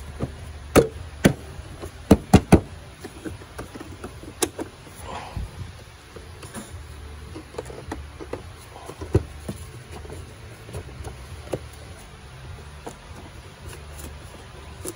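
Hands refitting an engine intake hose and its fittings: scattered sharp clicks and knocks, with a cluster of them about two seconds in, over a low steady hum.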